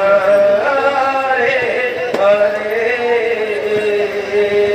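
Male voice singing a devotional naam sankirtan chant, the melody bending up and down and then settling into a long held note about three seconds in. A sharp click sounds about two seconds in.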